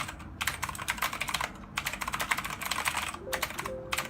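Fast typing on an Ajazz AK35i mechanical keyboard with Ajazz's own in-house switches: rapid runs of sharp key clicks, broken by short pauses about a second and a half in and again near the end.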